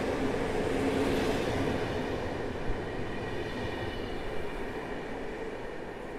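PKP Intercity passenger coaches rolling past close by as the train departs, a steady rumble of wheels on rail that fades as the last coach draws away.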